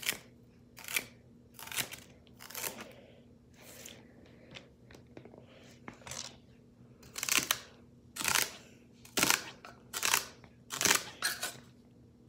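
Chef's knife chopping celery on a plastic cutting board: about ten separate chops roughly a second apart, the loudest ones in the second half.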